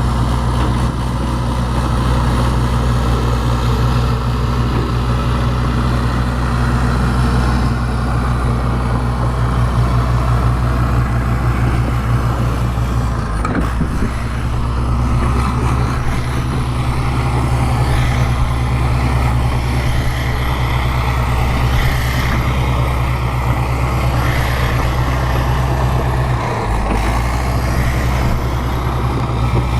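Bulldozer's diesel engine running steadily under load. Its note shifts briefly about halfway through and again near the end.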